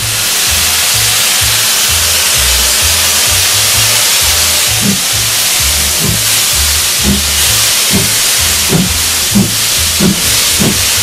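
Baldwin steam locomotive No. 15 hissing loudly with released steam. From about halfway in, regular exhaust chuffs come about every 0.6 s as the engine works.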